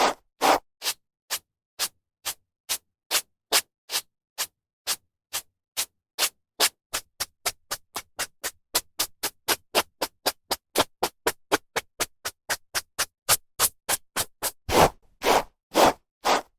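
Hairbrush strokes through hair: a run of short, even swishes with silence between them. They come about two a second, quicken to about four or five a second in the middle, and near the end slow to a few longer, louder strokes.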